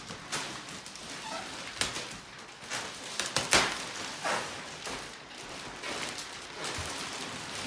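Thin plastic wrapping crinkling and rustling as a rolled foam mattress is turned over and pulled out of it, in irregular crackles with the loudest about three and a half seconds in.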